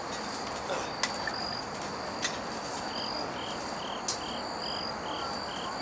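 Insects chirping in the evening: a steady high trill, joined about halfway through by a lower chirp repeating about twice a second. A few light, sharp knocks stand out over it.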